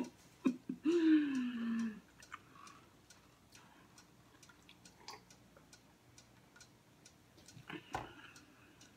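A woman's short, breathy vocal sound falling in pitch, like a sigh or a closed-mouth laugh, about a second in. Then quiet sips and swallows from a plastic cup over faint, regular ticking.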